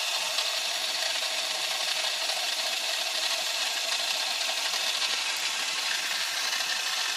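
Lego Technic electric motor driving a four-wheel-drive gearbox of plastic gears and axles, spinning the wheels fast with a steady, high grinding whir.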